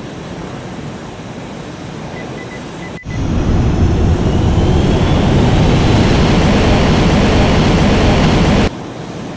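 Jet engine sound effect for an animated F-16 running up to full power with the afterburner lit: a loud rush with a faint rising whine, which starts abruptly about three seconds in and cuts off suddenly near the end. Before it there is a steady low hiss with a quick run of short electronic beeps.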